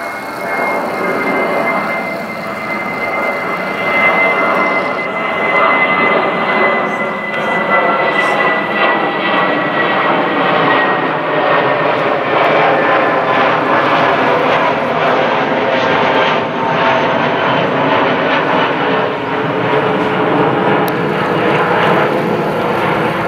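Twin-engine jet airliner passing low overhead at climb power after takeoff: a loud, steady jet rumble that builds over the first few seconds. A high engine whine runs through it, slowly falling in pitch over the first ten seconds or so.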